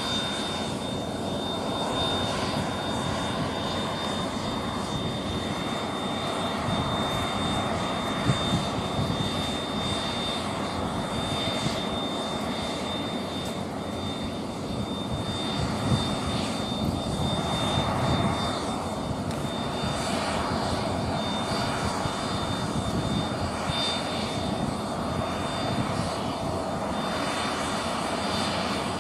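Cessna CitationJet CJ2's twin Williams FJ44 turbofan engines running at taxi power as the jet rolls slowly along the runway. It makes a steady rush with a thin, steady high-pitched whine.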